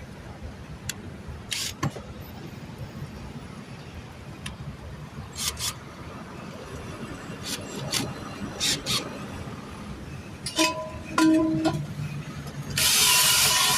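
A steady low rumble of traffic runs under scattered short clicks and knocks of tools being handled during a tire patch. Near the end comes a loud hiss lasting about two seconds.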